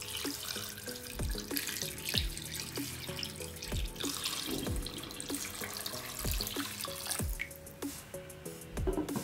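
Water pouring in a steady splashing stream from a plastic jug into a pot of raw chicken drumsticks, stopping near the end. Electronic background music with a regular beat plays throughout.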